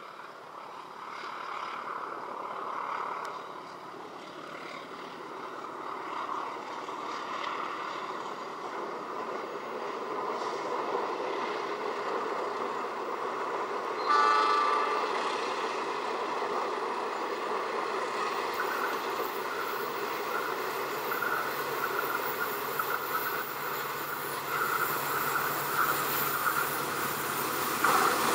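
Diesel-hauled passenger train approaching, its locomotive engine drone and running noise growing steadily louder. About halfway through, the locomotive's horn sounds once, briefly.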